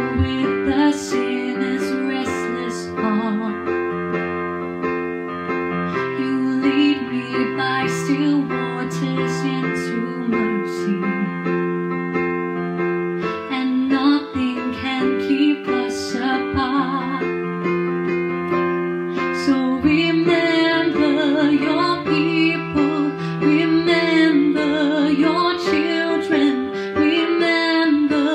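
A woman singing a slow worship song while accompanying herself on a Yamaha digital piano, held chords ringing under the sung melody.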